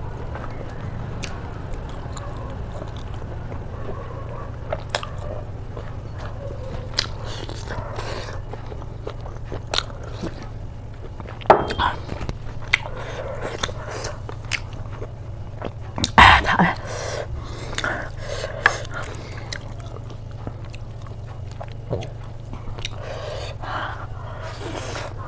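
A person chewing and biting pork, close-miked, with scattered short wet clicks and smacks from the mouth and two louder ones about halfway through, over a steady low hum.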